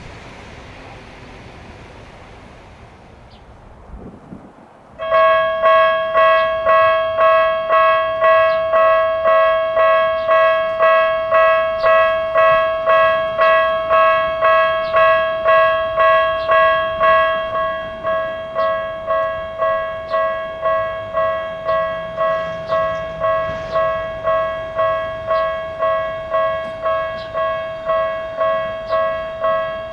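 Japanese level crossing alarm with a Tokyu-type electronic bell sound, starting about five seconds in and ringing a repeated ding a little under twice a second: the warning that a train is approaching. Before it, a fading rush of noise.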